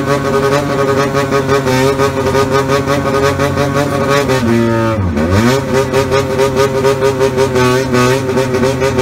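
Honda motorcycle engine revved hard while standing still, the revs held high and shifted up and down with the throttle. The revs fall sharply and climb straight back about five seconds in, with a smaller dip and rise near the end.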